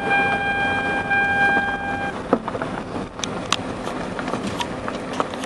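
Road and wind noise inside a moving car, with a steady tone that cuts off suddenly about two seconds in, then a few sharp clicks.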